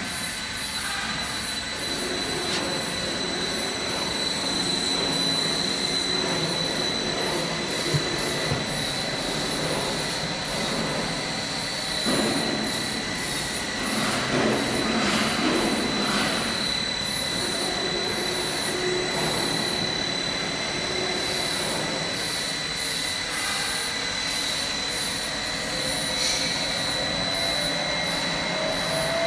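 GFJ-90KW high-speed mixer running steadily, its mixing blade spinning in the drum with a steady high-pitched whine over the machine noise.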